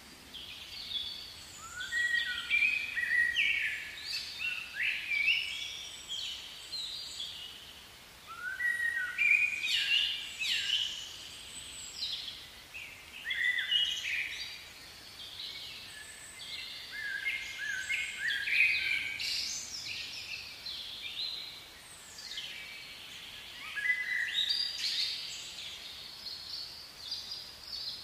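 Several birds chirping and singing in bursts of quick, overlapping chirps.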